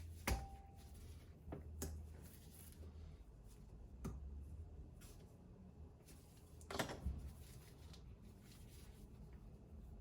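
Faint handling noises of espresso-machine boiler parts: a few light knocks, the sharpest just after the start, and a short scrape or rub about seven seconds in, over a steady low hum.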